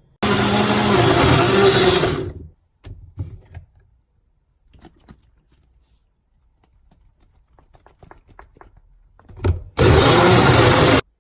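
Countertop blender blending a smoothie, run in two bursts: one of about two seconds at the start and a shorter one near the end, with a few light knocks in between.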